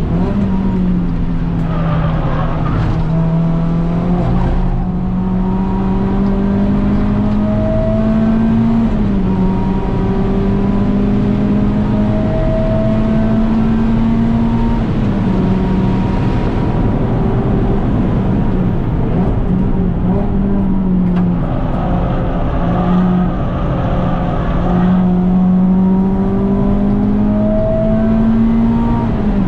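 Renault Clio 197 Cup's naturally aspirated 2.0-litre four-cylinder engine running hard on track. Its pitch climbs steadily and then drops back suddenly several times, as it is driven up through the revs and through gear changes.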